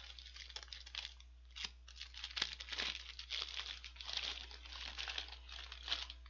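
McDonald's paper burger wrapper being handled and unfolded, crinkling and rustling unevenly with sharper crackles now and then.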